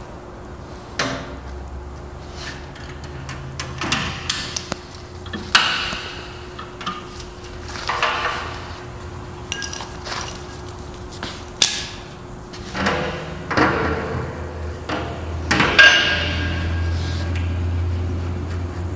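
Irregular metal knocks, clunks and clatters from handling a Graco T1 drum transfer pump as it is unstrapped and lifted out of a steel drum, with a strap being pulled free. A low hum swells near the end.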